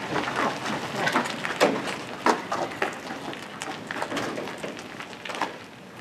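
Footsteps and scattered knocks and clicks as people push a biplane by hand across the ground, with no engine running.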